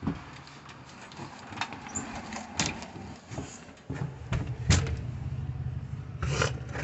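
Scattered knocks and clicks of a door and of handling as someone goes indoors. A steady low hum joins in about four seconds in.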